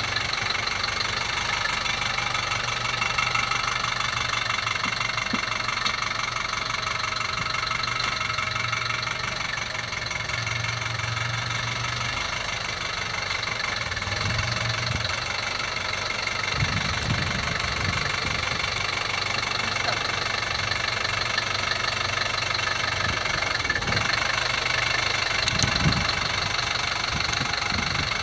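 A 1988 Mercedes G-Wagen Wolf's engine idling steadily.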